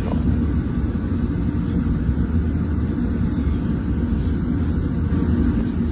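Steady low rumble of a car with its engine running and the heater blowing warm air.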